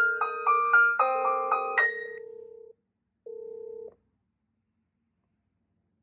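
Dahua video intercom ringing on an incoming call: a melody of bell-like chime notes over a steady pulsing call tone. It stops just under three seconds in, and one more short burst of the call tone follows about half a second later.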